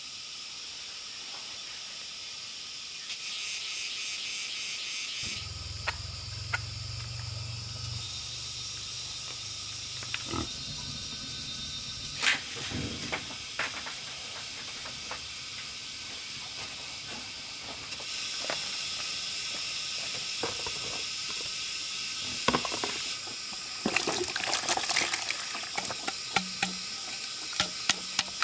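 Insects chirping steadily in the forest, with scattered sharp clicks and knocks that come thicker near the end. A low hum joins in for a few seconds about five seconds in.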